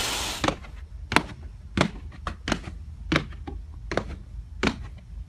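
Slow, even taps or knocks, about three every two seconds, each one sharp and short. A brief hiss at the start dies away about half a second in.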